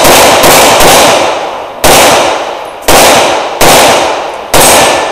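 Rapid pistol fire from a compensated Open-division race pistol: about six sharp shots, the first few about half a second apart, then slower, most about a second apart, each with a short fading echo.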